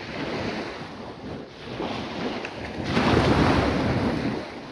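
Wind rushing over the microphone with surf on the beach behind it, growing louder about three seconds in.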